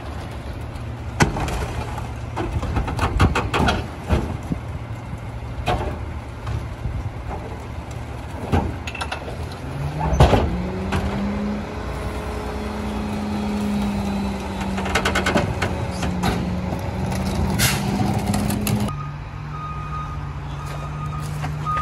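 Recyclables clattering and knocking as a recycling cart is dumped into a rear-load garbage truck's hopper. About halfway through, the truck's engine speeds up and holds a steady high hum while the packer runs. Near the end the engine drops to a lower hum and a reversing alarm beeps repeatedly.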